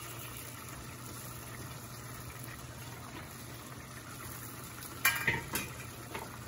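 Goat-liver sauce simmering in a pot: a steady, soft bubbling sizzle. About five seconds in come a few sharp knocks, as of a utensil against the pot.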